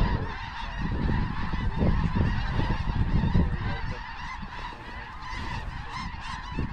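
A large flock of snow geese calling overhead: a dense, continuous chorus of overlapping honks and yelps, with a low rumble underneath that swells at the start and again about two to three seconds in.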